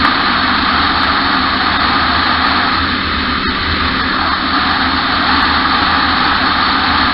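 Loud, steady rush of motorcycle engine and wind noise, recorded on a helmet-mounted action camera while riding.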